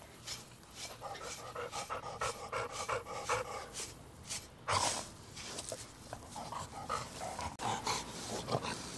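Dog panting in quick, rhythmic breaths while its coat is brushed with a metal-bladed deshedding brush, the strokes rasping through the loose undercoat.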